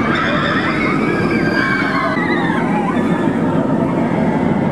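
Bolliger & Mabillard inverted roller coaster train running along the track with a steady rumble, riders' voices and yells over it.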